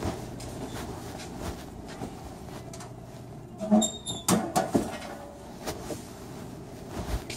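A cluster of sharp knocks and clatter with a short squeak about four seconds in, over a steady background hum.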